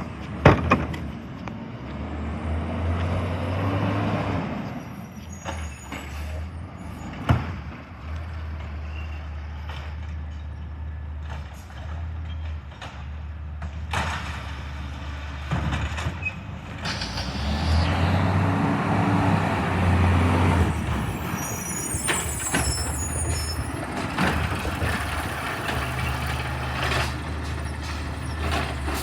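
Garbage truck's engine running and revving up twice for a few seconds at a time as it picks up and empties wheelie bins, with several sharp bangs and a few brief high squeaks.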